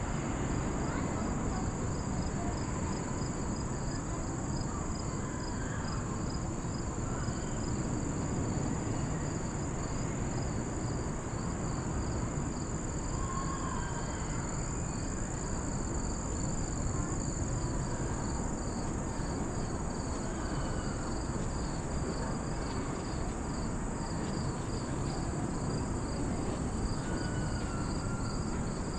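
A chorus of insects in the woods: a steady high-pitched trill and a second call pulsing a few times a second, over a steady low rumble.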